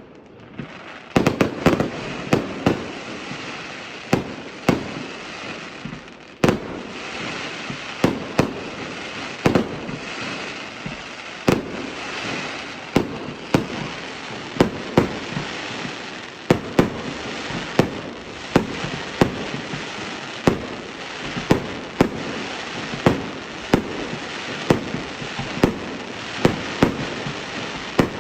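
Fireworks display: aerial shells going off in a steady run of sharp bangs, about one or two a second, over a continuous hiss. The bangs start about a second in.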